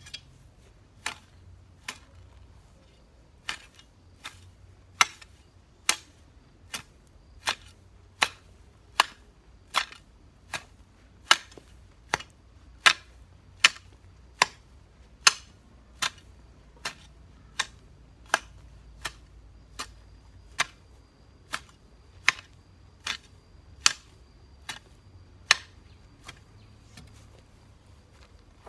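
Long-handled hoe chopping into the ground in a steady rhythm, one sharp strike about every three-quarters of a second, some thirty strikes in all.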